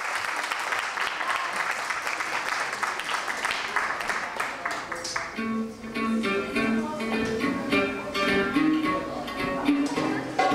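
Audience applause with jingling hand percussion. About halfway through, live Middle Eastern dance music comes in: sustained accordion notes over regular hand-drum and riq beats.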